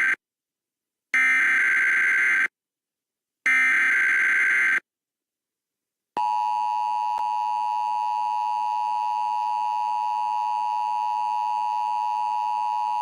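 Emergency Alert System SAME header: the tail of one digital data burst, then two more identical bursts about 1.3 s long, a second apart. About 6 s in, the EAS attention signal starts, the steady two-tone alert tone.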